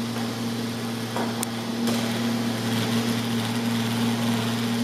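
Neato XV-11 robot vacuum running: the steady hum of its motor, with a few light knocks or ticks between one and two seconds in.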